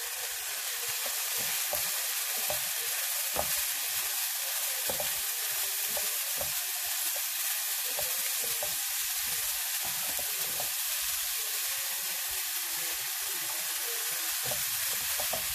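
Cauliflower rice and vegetables sizzling in a frying pan as they are stirred with a wooden spoon: a steady hiss with scattered light clicks of the spoon against the pan.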